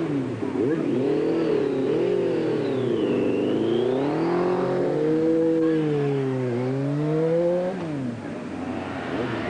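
Motorcycle engines revving, their pitch rising and falling repeatedly; one engine stays in front through most of the stretch, then drops away near the end.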